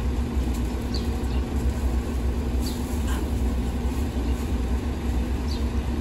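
Steady low rumble of street traffic, with a vehicle engine idling nearby. A few faint short high chirps sound over it.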